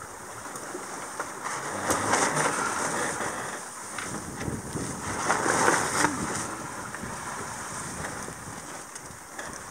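Wind buffeting the microphone and water rushing along a sailboat's hull under way, swelling louder about two seconds in and again around five to six seconds in.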